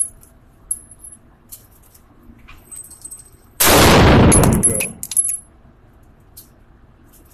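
A single AR-15 rifle shot about three and a half seconds in, loud and echoing off the walls of an indoor range. Light metallic tinkles of spent brass casings landing follow it, and a few more come near the start from the shot just before.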